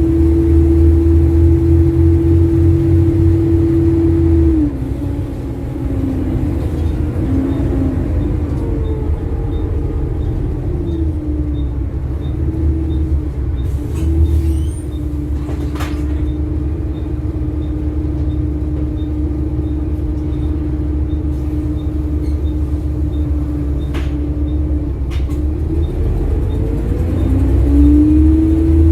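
Bus engine running under way, heard from inside the bus, with a faint, evenly spaced ticking from a blown exhaust manifold. A steady whine over the rumble drops away a few seconds in, comes back in the middle, and fades again before rising near the end.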